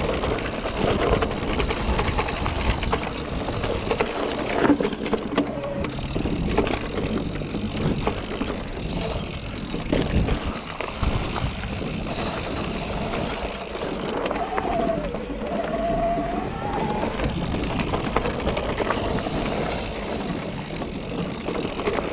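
Electric mountain bike ridden over a rough dirt trail: a steady rolling noise of tyres on the ground, with frequent knocks and rattles as the bike jolts over bumps.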